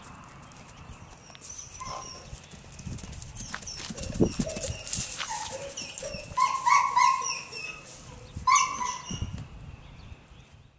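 Short, high yelping animal calls, several in quick succession about two-thirds of the way in and one more near the end, over rustling and a few thumps on straw.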